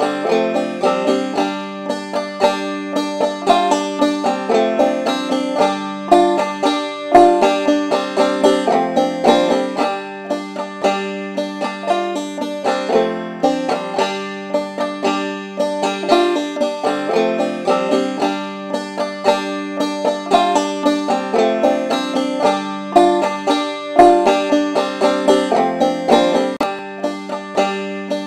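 Background acoustic music led by a banjo picking a quick, steady run of plucked notes.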